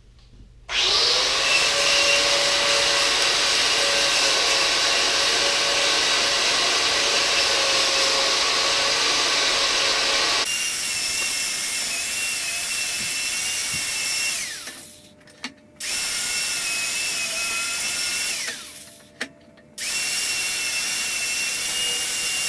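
Angle grinder started up and run against the rough barn-beam wood, grinding off dirt and rotten wood. The motor spins up with a rising whine just under a second in, runs steadily, then fades out twice and starts again suddenly each time.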